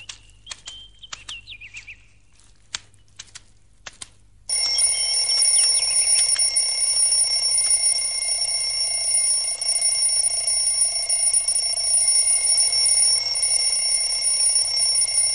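Alarm clock bell ringing without a break, starting suddenly about four and a half seconds in. Before it there are only a few faint clicks.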